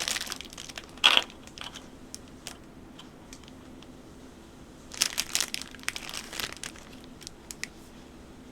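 Keyboard packaging being unwrapped and handled during unboxing: crinkling and rustling in irregular bursts, loudest just after a second in and again from about five to six and a half seconds in, with small clicks between.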